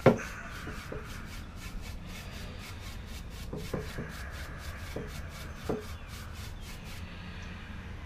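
Stiff-bristled hand brush swept quickly back and forth along a sanded wooden walking stick, brushing off the sanding dust. The brush strokes come about four or five a second after a sharp knock at the start, with a few light taps among them. They stop about a second before the end.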